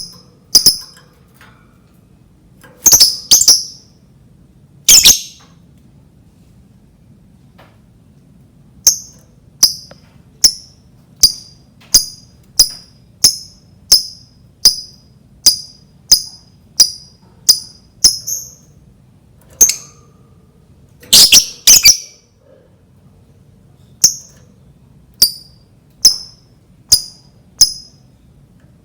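Lovebird giving short, shrill calls: a few loud doubled ones and a long, even run of single calls about every two-thirds of a second.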